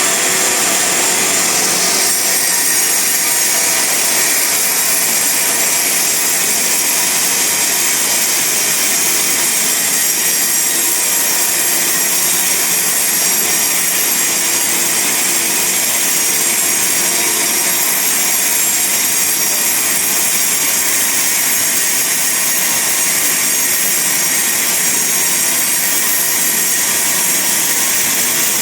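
Band sawmill running and sawing through a log: a loud, steady sawing noise with high steady tones, unbroken throughout.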